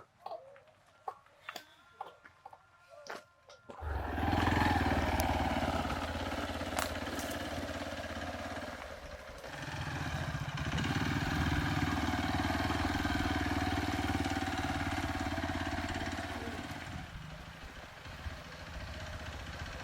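A few sharp clicks and knocks, then about four seconds in a Hero XPulse motorcycle engine starts up suddenly and runs. Its revs dip briefly near the middle, and it is quieter near the end.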